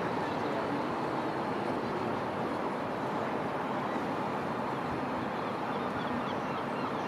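Steady city background noise, a mix of distant traffic and machinery, with a few faint high chirps near the end.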